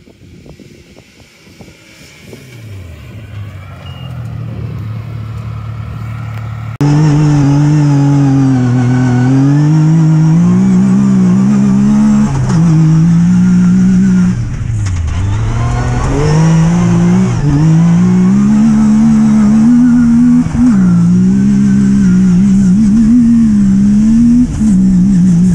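Yamaha YXZ1000R side-by-side's three-cylinder engine: first heard approaching, growing from faint to louder, then, about seven seconds in, suddenly loud from on board at speed, its pitch repeatedly climbing and falling with the throttle.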